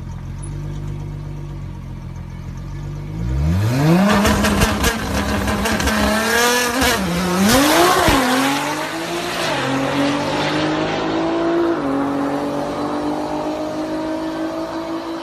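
Nissan GT-R's twin-turbo V6 idling at the start line, then launching hard about three seconds in. The engine pitch climbs steeply, dips and climbs again at each gear change, and keeps rising more slowly as the car pulls away down the drag strip.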